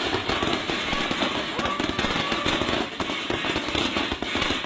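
Homemade handheld firework gun firing non-stop: a dense, rapid crackle of pops and shots.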